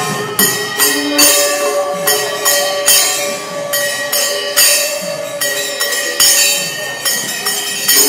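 Manipuri pung barrel drums and small brass hand cymbals played together in a fast rhythm, with ringing cymbal clashes about twice a second. A long held note sounds over them.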